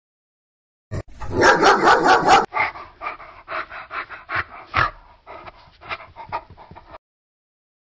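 Dog panting in quick, rhythmic breaths, about four to five a second. It starts about a second in, is loudest for the first second and a half, then fades and stops near the end.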